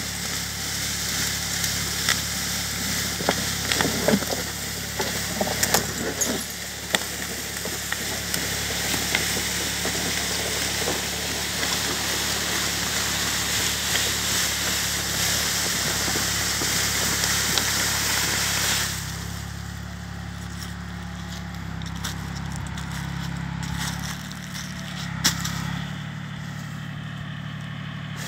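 A tractor engine runs steadily while its forestry winch drags a beech log over dry leaves, with a hissing, crackling rustle of the log sliding through the leaf litter. The rustle stops suddenly about two-thirds of the way in, leaving the engine running on with a few clicks.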